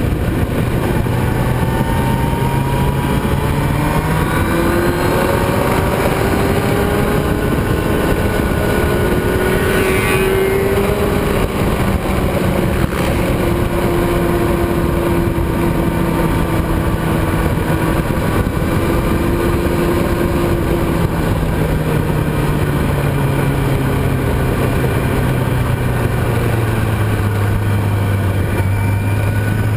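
Motorcycle engine at track speed, heard from an onboard camera under heavy wind rush. Its pitch climbs through the first third, holds through the middle, and falls steadily toward the end as the bike slows.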